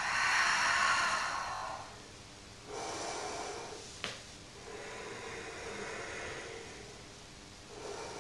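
A woman's slow, audible breathing close to the microphone: long breaths in and out, about four in all. There is a single small click about four seconds in.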